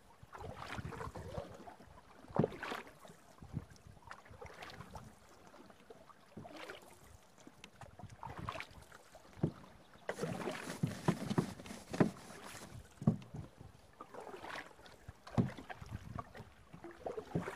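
Canoe paddles dipping and pulling through river water, splashing and dripping at irregular intervals of a second or two, with a few sharper knocks, the loudest about two and a half seconds in and around twelve seconds in.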